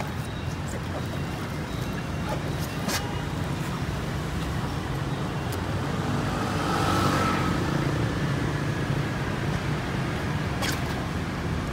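Steady low street-traffic noise, with one vehicle passing close, swelling and fading about six to eight seconds in. A sharp click about three seconds in and another near the end.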